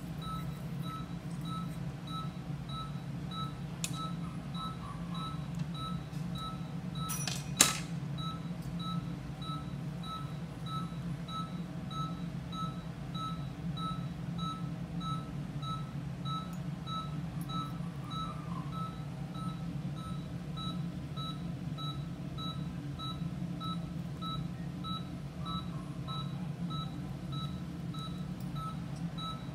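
Patient monitor beeping steadily, a short beep about twice a second, the kind of pulse beep that tracks an anaesthetised dog's heartbeat, over a steady low hum. One sharp click comes about seven seconds in.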